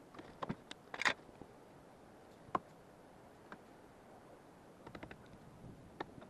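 A few light clicks and knocks scattered over a quiet background, with a short brushing rustle about a second in; no motor is running.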